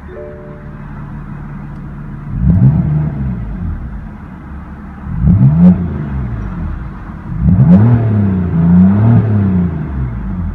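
2016 BMW M3's 3-litre twin-turbo inline six idling just after start-up, then blipped: one rev about two seconds in, another about five seconds in, and two quick revs back to back near the end, each rising and dropping straight back to idle.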